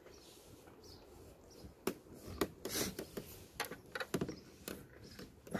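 Hands pressing and rubbing a roof spoiler down onto a car's tailgate to bed it onto its adhesive tape and sealant: scattered light taps, creaks and short scrapes, starting after a near-quiet couple of seconds.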